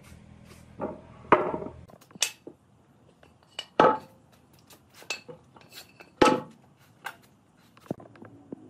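Wooden boards and slabs being moved and set down on a concrete floor: a string of separate wooden knocks and clatters, the loudest about a second and a half, four and six seconds in.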